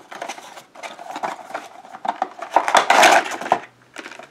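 A small cardboard vinyl-figure box being opened and the figure pulled out in its clear plastic bag: scattered taps and rustles of cardboard and plastic, with a louder spell of plastic crinkling about three seconds in.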